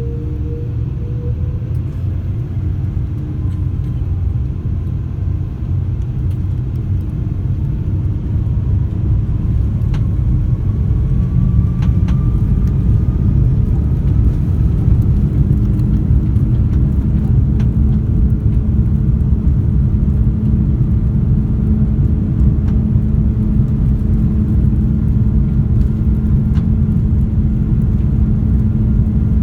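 Cathay Pacific Airbus A330-300's Rolls-Royce Trent 700 engines at takeoff power, with a deep rumble that grows slowly louder. A whine rises in pitch over the first dozen seconds, and a steady hum joins about halfway through.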